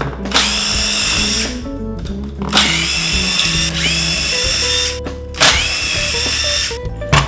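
Cordless electric screwdriver running in three bursts, the middle one the longest with its whine dipping and picking up again, over background music.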